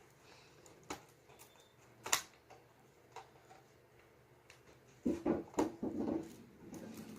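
Plastic Lego bricks being handled and pulled apart: a few separate sharp clicks, then from about five seconds in a busier clatter of bricks.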